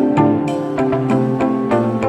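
Background music: pitched instruments playing notes over a steady beat of regular percussive hits.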